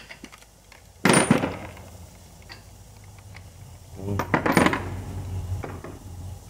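Steel impact sockets clinking and clattering as they are handled and set back in a plastic tool case: one sharp clack about a second in, small clicks, and a longer clatter around four seconds in.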